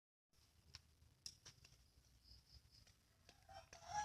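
Near silence, with a few faint clicks and, near the end, a faint call beginning.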